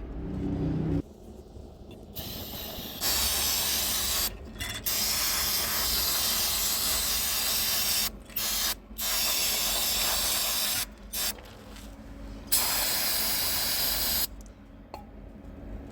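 Aerosol brake parts cleaner hissing from the can in a string of long bursts with short breaks between them. It is being sprayed onto a rusted, seized hood latch to flush it and free its action.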